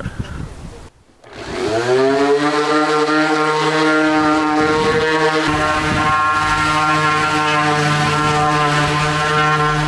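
Electric random orbital sander switched on about one and a half seconds in, its whine rising quickly as it spins up and then running at a steady speed while fine-sanding a wooden tabletop.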